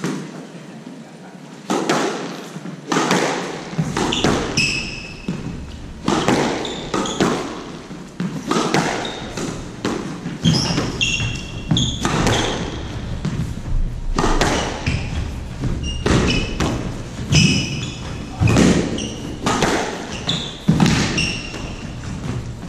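Squash rally: the ball smacking off rackets and the court walls again and again, starting about two seconds in, with sneakers squeaking on the wooden court floor between shots.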